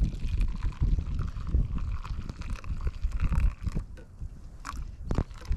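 Wind buffeting the camera microphone in gusts over the wash of river water, with one sharp knock about five seconds in.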